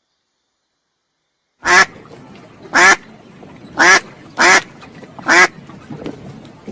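A duck quacking five times, short loud quacks about a second apart, starting nearly two seconds in.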